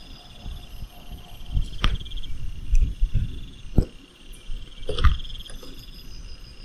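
Bearded dragon crunching and chewing its prey: a few sharp crunches about two, four and five seconds in, with softer chewing between. Crickets chirp steadily throughout.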